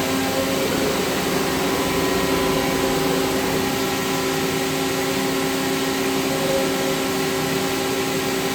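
CNC machine running steadily: a constant machine noise with several steady whining tones held at an even pitch.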